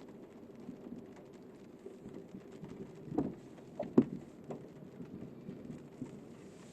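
Light rain ticking irregularly on a car over a faint steady background, with two louder knocks about three and four seconds in.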